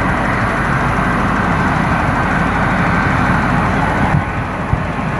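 Steady road-traffic noise from passing vehicles, easing a little about four seconds in, with a couple of light knocks near the end.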